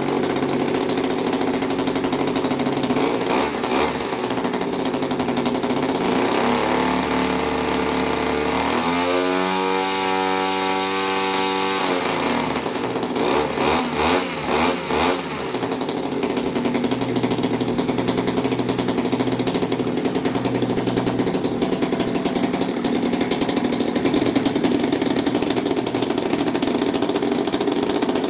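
Brand-new 38 cc Zenoah G38 two-stroke model-aircraft engine running with its propeller on its first test run. Its pitch shifts between about six and twelve seconds in, and its level wavers for a couple of seconds after that before it settles to a steady run.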